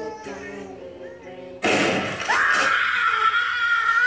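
A voice sings a few held notes, then about one and a half seconds in a sudden loud crash breaks in and a shrill scream is held at one high pitch, rising briefly as it starts.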